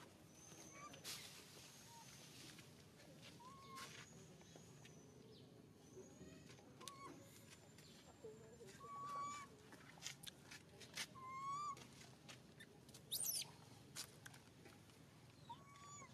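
Faint outdoor ambience with short, high-pitched animal calls every few seconds, scattered light clicks, and a pair of sharp, squealing sweeps about three-quarters of the way through.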